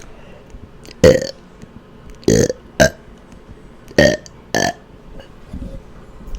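A woman burping deliberately: five short, loud burps, a single one about a second in, then two quick pairs.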